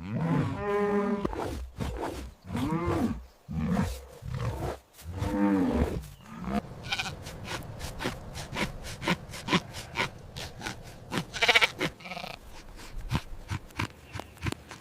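Farm animal calls: several drawn-out calls with arching pitch in the first six seconds, then a run of short sharp clicks with a few brief calls among them.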